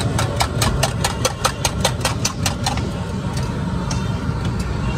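A metal spoon rapidly clinking against a steel tumbler as eggs are beaten, about five strikes a second, stopping a little under three seconds in, with a few stray clinks after. A steady low rumble runs underneath.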